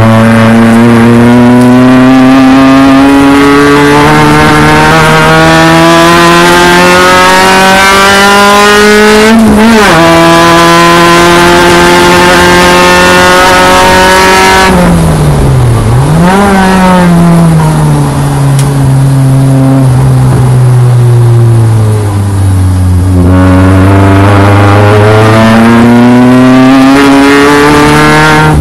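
Car engine heard from inside the car during a hard lap. It pulls through the gears with a climbing pitch and shifts up sharply about nine seconds in, then climbs again until about halfway. There the engine drops off under braking, with a quick downshift blip, runs low for several seconds, and climbs again under acceleration near the end.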